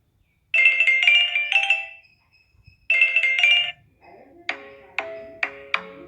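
Smartphone ringtone previews playing: a bright chime ringtone of quick high notes sounds twice, then a different ringtone of struck, wood-block-like notes in a steady rhythm of about two to three a second starts near the end.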